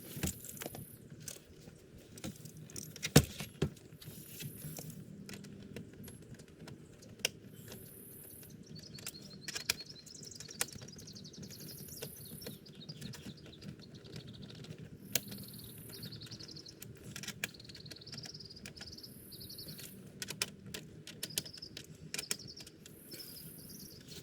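Scattered metallic clicks and knocks of hand tools and small parts being handled, the sharpest about three seconds in. Birds or insects chirp faintly in the background.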